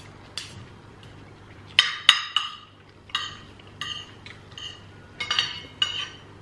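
Metal forks and spoons clinking and scraping on ceramic dinner plates: a series of short ringing clinks, several close together about two seconds in and again around five seconds in.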